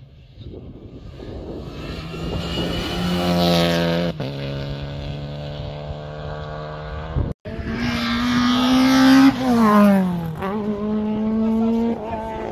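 Rally car engines at high revs on a tarmac stage: the pitch climbs and then steps down at a gear change about four seconds in. After a sudden cut, another car revs higher still, then its pitch falls as it slows around ten seconds in, before it settles back onto steady throttle.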